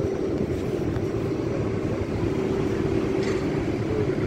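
Steady airport apron noise: a low engine rumble with a continuous hum held on one pitch.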